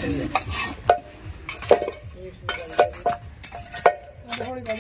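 Scattered sharp clinks and knocks, about half a dozen, as a metal snake tong is worked among loose stone slabs and bricks. Crickets chirp steadily in the background.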